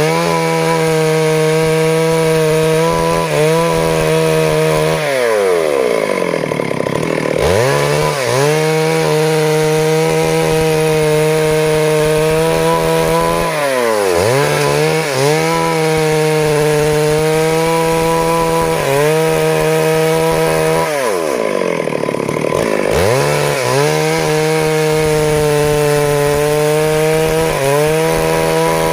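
Stihl MS 382 two-stroke chainsaw running at high revs while cutting wood into boards. Its engine note drops and climbs back up several times, about every seven to eight seconds, as the throttle is eased and opened again between passes.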